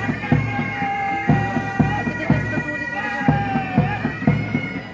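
Military pipe band playing a march: bagpipes sounding long held melody notes over a steady drone, with drums beating about twice a second.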